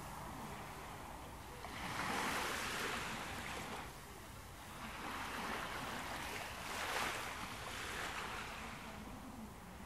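Ocean waves washing in slow swells. One surge rises about two seconds in, and a longer one builds from about five seconds and peaks near seven.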